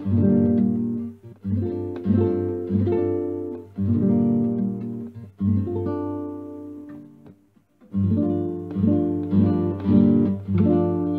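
Background music on acoustic guitar, chords played in phrases, with a short break about two-thirds of the way through.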